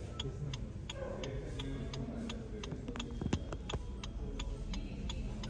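A car's indicator relay ticking steadily, about three clicks a second, over a low background murmur, with one louder knock a little past the middle.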